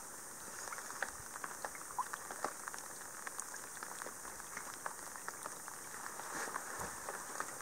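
Rain falling on a lake: a soft, steady patter of drops with many scattered, irregular plinks.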